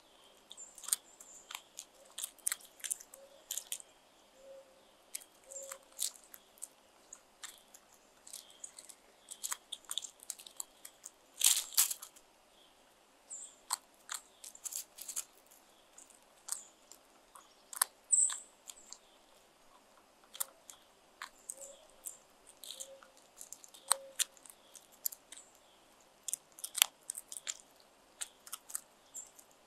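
Crows pecking at a pile of food on gravel close to the microphone: irregular sharp clicks and crunches of beaks striking the food and stones, with a louder cluster of strikes about eleven seconds in.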